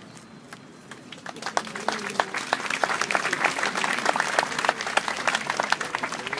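Audience applauding. Scattered claps begin about a second in and quickly build into steady, dense applause.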